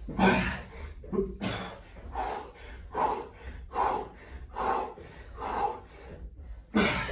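A man breathing hard in time with push-ups: a run of about seven forceful exhales, roughly one a second.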